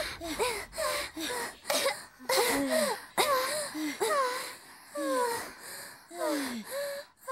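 A voice making short, wordless cries, each gliding down in pitch, about two a second.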